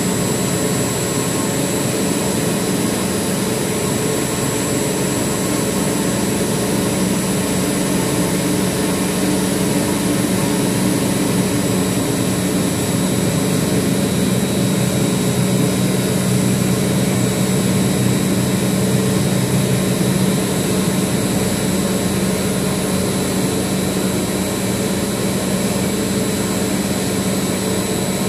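Centrifugal chiller compressor running steadily, a loud machine-room drone with a constant high whine, as the compressor loads up with its pre-rotation vanes opening.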